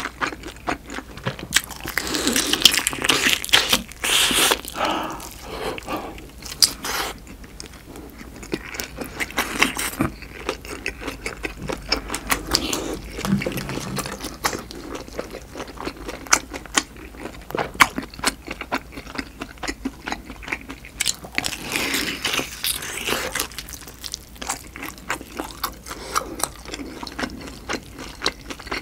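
Close-miked eating of pan-fried duck bulgogi dumplings: biting and chewing with many sharp mouth clicks and a few longer crunchy chewing spells, about two seconds in and again about twenty-one seconds in.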